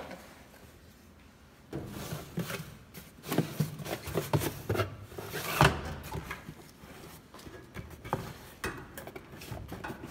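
Objects being handled at close range: irregular knocks, clicks and rustling, with a sharp knock a little past halfway.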